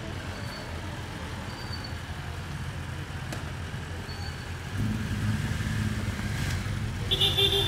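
A vehicle engine idling steadily, which becomes louder from about five seconds in.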